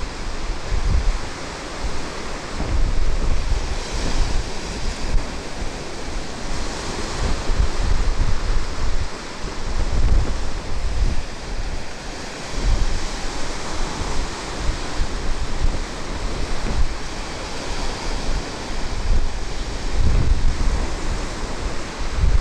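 Sea waves breaking and washing over rocks, a continuous surf hiss that swells every few seconds, with wind buffeting the microphone in irregular low gusts.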